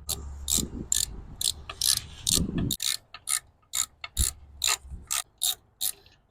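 Ratchet wrench clicking in short, even strokes, about three clicks a second, as the coil pack bolts are run down.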